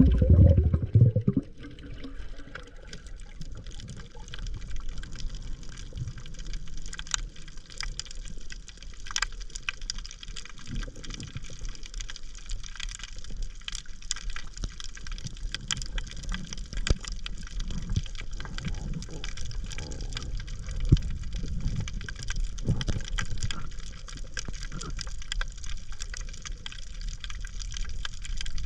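Water churning and bubbling close to the microphone, with scattered small sharp clicks; a louder low rush comes in the first second or so.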